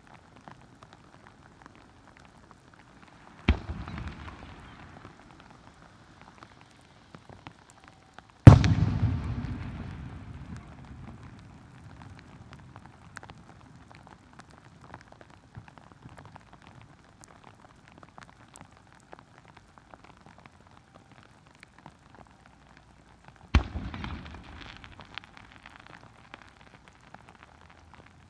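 Aerial firework shells bursting three times: a few seconds in, a louder one about a third of the way in, and another near the end. Each boom is followed by a rumbling echo that dies away. Between the bursts heavy rain patters steadily.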